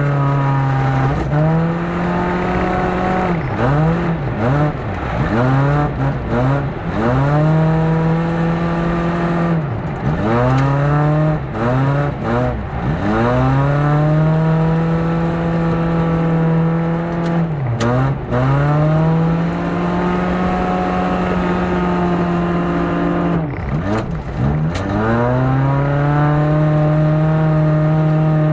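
Front-wheel-drive ice-racing car's engine at full effort. The revs are held high and steady for stretches, then drop sharply and climb again several times, in quick flurries a few seconds in and again about ten seconds in.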